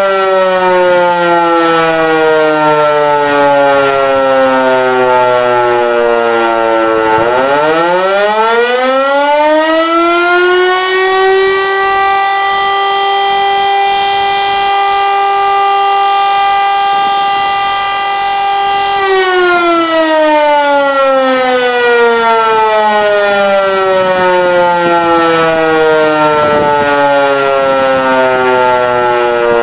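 Hörmann E57 electric motor siren, freshly overhauled, sounding the German fire-alarm signal of blasts and pauses. It winds down with falling pitch, then about seven seconds in it spins up again, rising quickly to a steady tone. It holds that tone for about seven seconds, then is cut off and winds down with slowly falling pitch.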